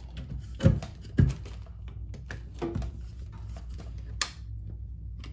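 Hard plastic top of a tabletop fume extractor being handled and fitted onto its housing: a couple of knocks about a second in, then light rattling and a sharp click near the end as it is pressed into place.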